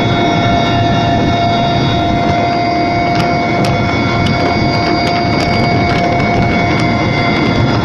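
Aircraft cabin noise in flight: steady engine and airflow noise with several steady whining tones from the engines held throughout.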